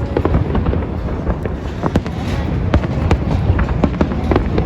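Fireworks going off in quick succession: a dense run of sharp cracks and pops, several a second, over a continuous low rumble of booms.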